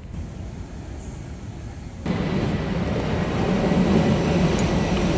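Airplane passing low overhead: a steady rushing rumble that comes in suddenly about two seconds in and keeps growing louder.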